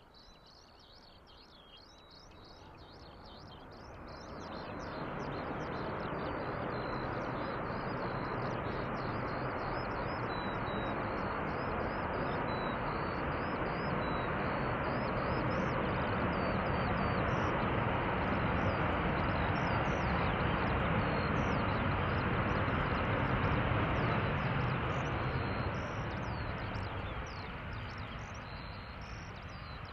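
Jet airliner engine noise building over a few seconds, holding loud for about twenty seconds, then fading, with small birds chirping throughout.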